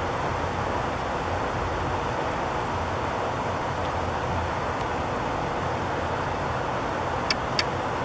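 Steady, even background noise, a mix of rumble and hiss, with two light clicks a little past seven seconds in.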